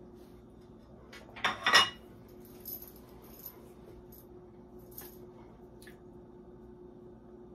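A small plate set down on a tiled countertop with a brief clatter in two quick knocks about a second and a half in, followed by a few faint clicks over a low steady hum.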